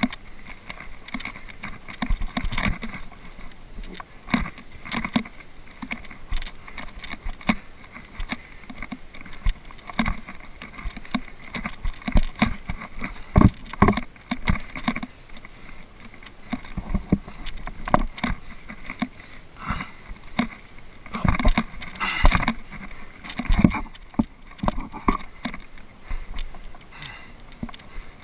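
A climber moving hand over hand on rock and fixed chains: irregular knocks, scuffs and rustles of gloved hands and body against the granite and metal, with a louder flurry about three quarters of the way through.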